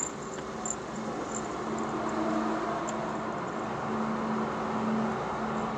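Steady low drone of a kei van creeping across a car ferry's enclosed vehicle deck, engine running at low speed, with a low hum that fades in and out.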